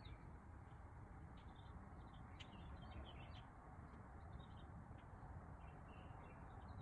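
Near silence: low room rumble with faint, scattered chirps of small birds in the background.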